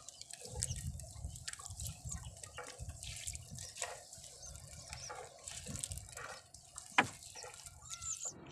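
Seawater dripping and splashing off a fishing net as it is hauled by hand over the side of a wooden outrigger boat, in many small irregular drips and splashes. One sharp click about seven seconds in.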